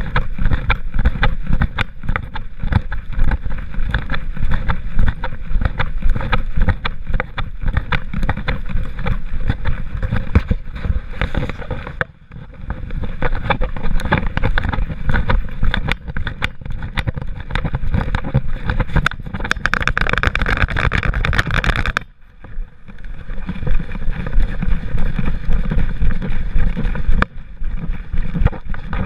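Rubbing, bumping and rustling of a back-mounted GoPro camera and its harness against a poodle's fur as the dog walks, a dense run of small clicks over a low rumble, with two brief lulls and a louder rush of noise about two-thirds of the way in.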